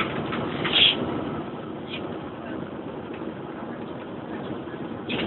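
Steady drone of a Bova Futura coach's diesel engine and tyre noise heard from inside the passenger cabin while under way, with a brief sharp noise about a second in.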